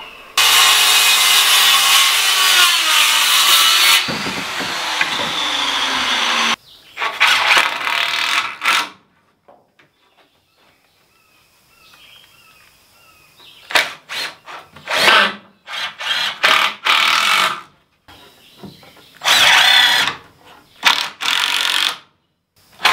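A power saw cuts through a 2x4 and spins down with falling pitch. Later a cordless driver drives screws into the wood framing in several short bursts, with a quiet pause between them.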